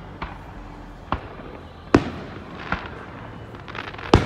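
Aerial fireworks shells going off: a series of about five sharp booms, irregularly spaced, with some faint crackling just before the loudest boom near the end.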